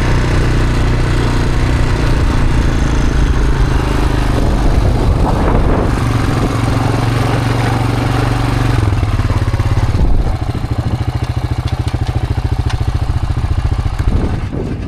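Portable sawmill's gasoline engine running steadily; about ten seconds in it drops to a lower, quieter, more pulsing running.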